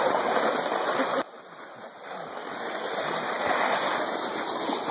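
Plastic sled being towed over packed snow, a steady scraping hiss, with footsteps crunching in snow. The hiss drops sharply about a second in, then slowly builds back up.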